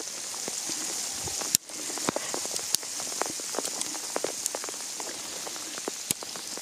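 Hailstones falling and striking the ground and vegetation: many sharp, irregular ticks over a steady hiss. The sound drops out briefly once, about a second and a half in.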